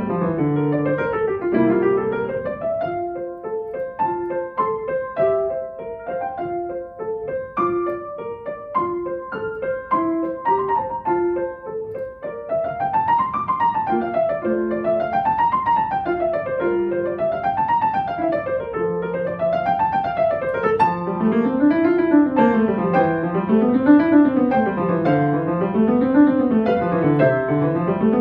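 Solo piano playing a classical piece: separate notes and chords at first, then, about twelve seconds in, fast scale runs that rise and fall over and over, about one each two seconds. In the last third a second line of runs moves up and down lower in the keyboard alongside them.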